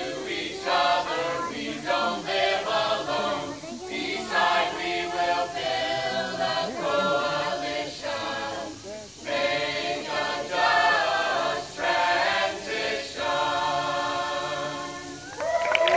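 A group of voices singing together in phrases broken by short pauses. Applause starts right at the end.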